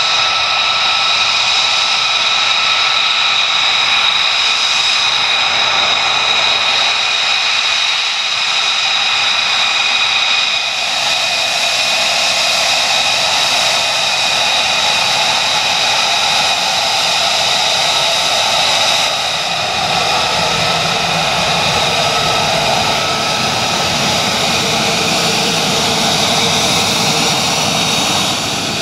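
The single Pratt & Whitney F135 turbofan of an F-35A Lightning II running at low taxi power: a loud, steady jet whine with several high, steady tones. The balance of the tones shifts slightly a couple of times.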